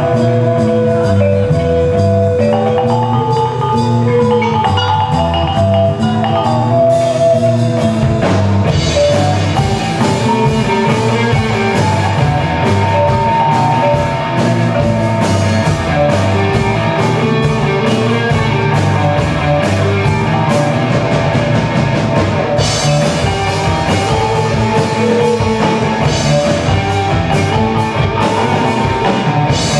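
Live ensemble music mixing Minangkabau talempong gongs with a rock band: a struck-gong melody at first, growing denser about eight seconds in as the drum kit, electric guitar and bass fill in.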